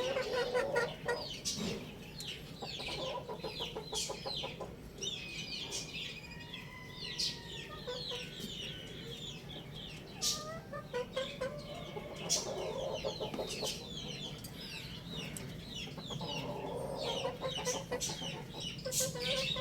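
Chickens clucking, with many short high-pitched chirps over them.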